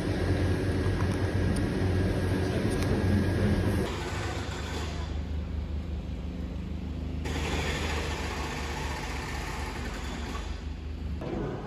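A steady low background hum, then, from about four seconds in, city street ambience with a steady low rumble of traffic.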